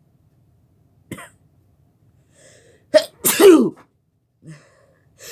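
One loud human sneeze about three seconds in, after a couple of short catching in-breaths. The sneeze bursts out sharply, and its drawn-out vocal part falls in pitch. It was set off on purpose by tickling the inside of the nose with a poked-in object.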